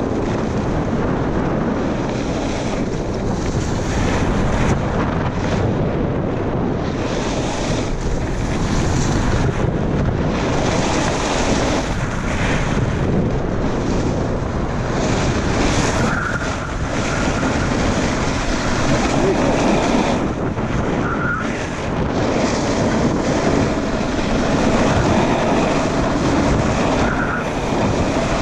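Wind buffeting the microphone of a camera moving downhill, over the rushing hiss of snowboards sliding and carving on snow, which swells in surges every few seconds.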